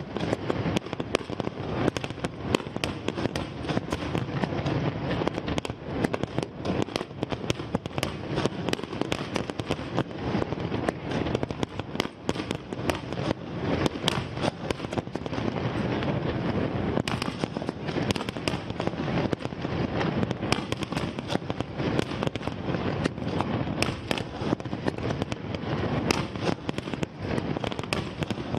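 Fireworks display: a continuous barrage of aerial shells bursting, dense sharp bangs and crackling over a low rumble, with no break.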